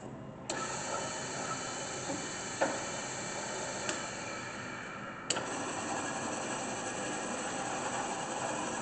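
Heads of a Rockwell/Delta Model 70-400 production drill press, with 1 hp three-phase motors, switched on one after another: the first starts about half a second in and a second joins about five seconds in, both running with a steady hum and hiss. A couple of sharp clicks come in between.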